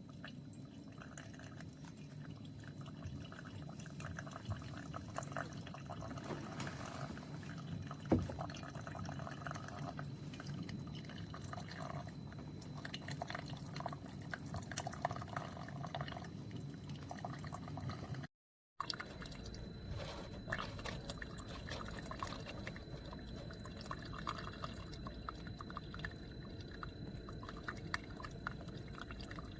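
Tastyle single-serve coffee maker brewing: hot water streams and drips into a mug over a steady low hum, with a brief dropout about two-thirds through.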